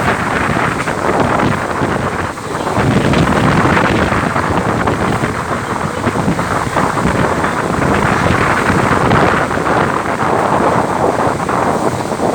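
Strong wind blowing hard across the microphone on a ferry deck, loud and gusting, with a brief dip about two seconds in.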